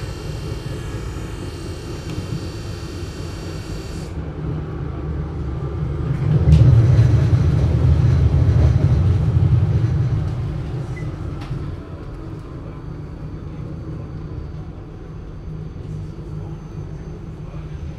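GT6M low-floor articulated tram running, heard muffled: a steady low rumble that swells about six seconds in and eases off again after about ten seconds. A high whine of several steady tones runs over it and cuts off about four seconds in.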